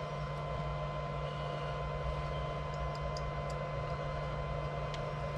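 Steady low room hum with a thin constant tone above it, and a few faint light ticks near the middle as small wires and a plastic plug are handled.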